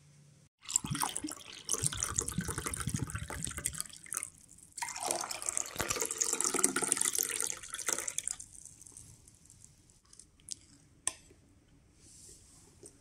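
Water running and splashing in two stretches with a short break between them, stopping about eight seconds in, followed by a few faint clicks.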